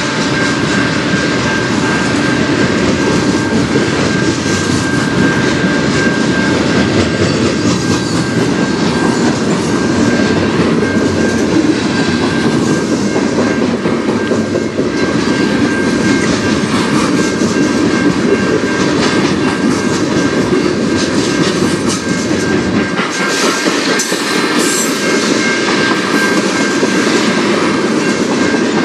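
Freight train cars rolling past close by, wheels clacking steadily over the rail joints, with a thin steady high whine running underneath. The deep rumble thins out about 23 seconds in.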